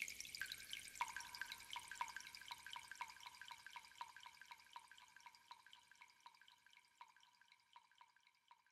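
Dripping-water plinks: short high drops at a few fixed pitches, about three a second, slowly fading out.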